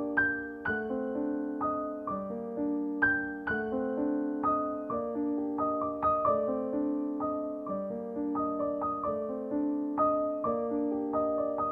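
Background piano music: a gentle melody of single notes over chords, each note struck and dying away, a few notes a second.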